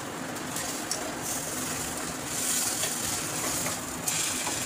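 Uttapams sizzling steadily on a hot tawa over a gas burner. There are a couple of light clicks of the spatula against the pan, one about a second in and one near the end as an uttapam is lifted off.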